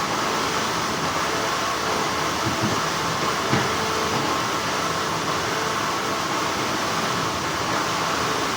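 Steady hum of textile factory machinery, with a couple of faint short clicks a few seconds in.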